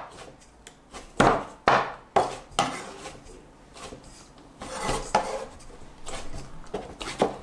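Chinese cleaver chopping peeled tomato on a wooden cutting board, four chops about half a second apart a second or so in. After that the blade scrapes and scoops the chopped tomato across the board into a bowl, with light knocks.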